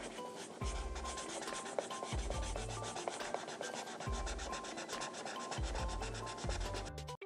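Instrumental background music: a fast, even scratchy rhythm of about eight strokes a second over a short pulsing bass line and brief melody notes. It cuts off suddenly near the end.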